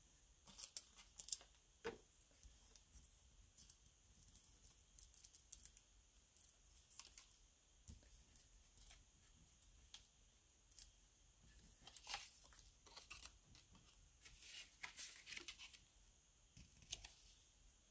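Faint, scattered paper rustles and small peeling crackles as backing is peeled off foam adhesive dimensionals and a cardstock panel is handled and pressed onto a card, with a few light ticks. There is a busier stretch about twelve seconds in and again around fifteen seconds.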